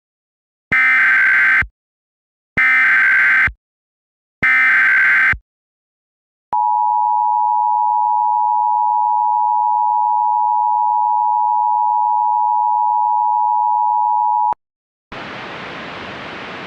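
Emergency Alert System tones: three harsh, buzzy SAME data header bursts, each about a second long with short gaps between them, then the EAS two-tone attention signal, a steady beep held for about eight seconds that cuts off sharply. A steady hiss starts near the end.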